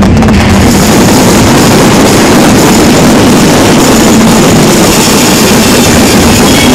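Dense fireworks barrage with crackling stars, heard as one continuous loud rush of noise with no separate bangs, overloading the recording.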